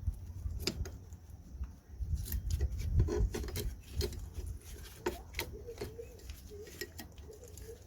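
Small metal clicks, knocks and rubbing as rear drum-brake parts, the parking brake mechanism and shoe, are handled and fitted by hand. The clicks come irregularly, a few to the second.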